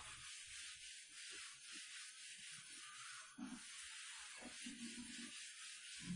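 Blackboard duster wiping chalk off a chalkboard in repeated strokes: a faint, steady scratchy hiss.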